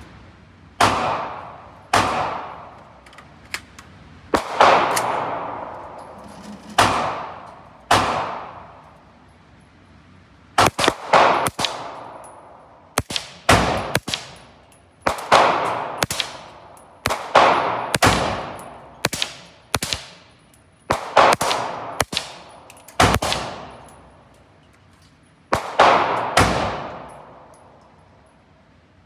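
Suppressed 300 Blackout rifle shots, from a Daniel Defense DDM4 PDW with a SilencerCo Omega 300 suppressor: about two dozen single shots, mostly a second or two apart with a few quick pairs and triplets. Each shot is sharp and is followed by about a second of ringing decay.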